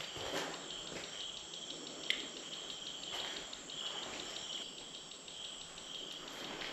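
Crickets chirping outside in a steady, pulsing high trill. A few soft scuffs and one sharp click about two seconds in.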